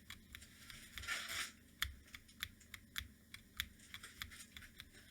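Keys being pressed on a Corne split keyboard with Hako True switches and SA-profile DreamEater keycaps: faint, evenly spaced clacks about three a second, with a short break about a second in.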